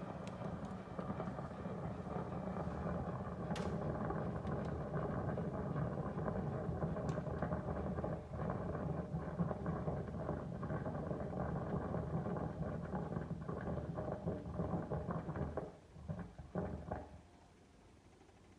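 Daikin Urusara indoor air conditioner unit making a loud, rough gurgling and bubbling noise like boiling, which the owner takes for water in the unit. It stops about 16 seconds in, after two last short gurgles.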